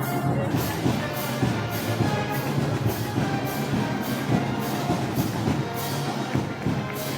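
Brass band music with drums, and a cymbal stroke on every beat a little under twice a second, keeping a steady march tempo.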